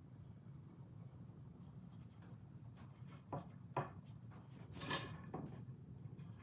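Two glued lumber boards being handled and pressed together by hand on a wooden bench: faint rubbing as the glued faces slide against each other, two light wooden knocks a little past halfway, and a brief scrape about five seconds in.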